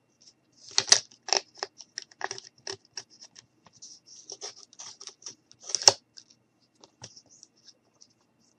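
Irregular light taps, clicks and scratches of a wooden popsicle-stick craft piece being handled and pressed against a wooden tabletop, with a few sharper knocks about a second in and again past the middle.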